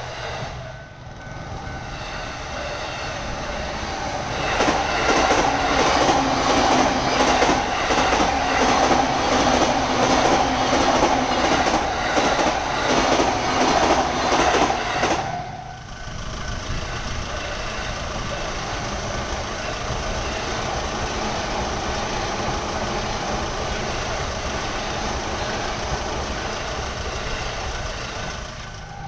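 JR electric trains passing over a level crossing, the wheels clattering over the rail joints, while the crossing's warning bell rings steadily. The loudest pass is in the first half. The sound drops out briefly twice where one clip cuts to the next.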